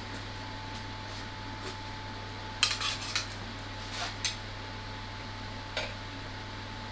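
Pieces of metal clinking and clanking as they are handled. There is a quick cluster of clanks about two and a half seconds in, two more around four seconds, and a single one near the end, all over a steady low electrical hum.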